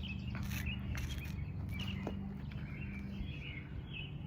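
Small birds chirping in short, repeated calls over a steady low hum, with a few faint taps.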